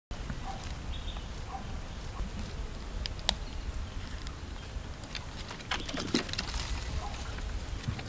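Outdoor bush ambience: a low steady rumble with scattered rustles and clicks, and a few faint short chirps in the first two seconds. A sharp click about three seconds in is the loudest sound, and a short burst of rustling comes near six seconds.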